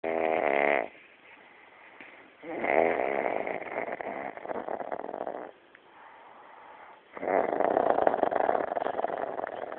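A man snoring in his sleep: three rattling snores, a short one ending about a second in, then two long ones of about three seconds each, starting about 2.5 and 7 seconds in, with quiet breathing between them.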